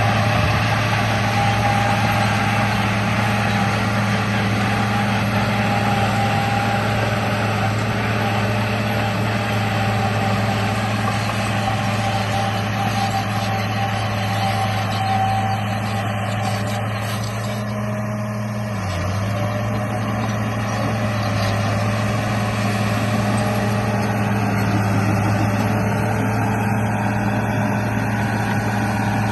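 Radio-controlled bulldozer running with a steady motor hum, briefly dipping about two-thirds of the way through.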